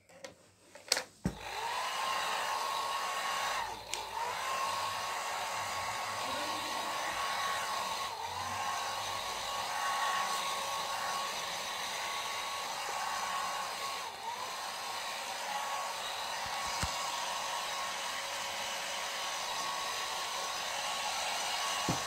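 Small, cheap handheld hair dryer switched on about a second in, running with a steady blowing rush and a motor whine. Three times the whine dips briefly and picks back up to speed.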